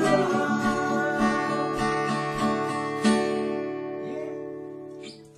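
Acoustic guitar playing the closing chords of the song: steadily picked notes, then a final strum about three seconds in that rings out and slowly fades away.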